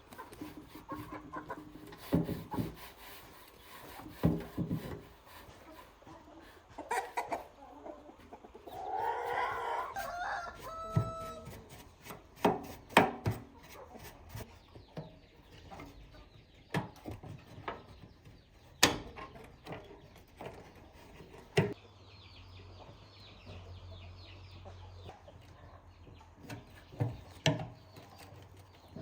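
Scattered sharp knocks and clicks, with a short warbling animal call about nine seconds in.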